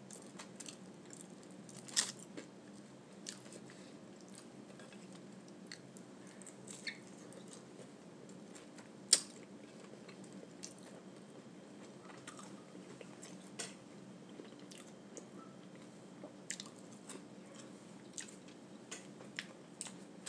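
A person chewing and biting food close to the microphone, with scattered sharp crunchy clicks. The two loudest come about two seconds in and about nine seconds in, over a steady low hum.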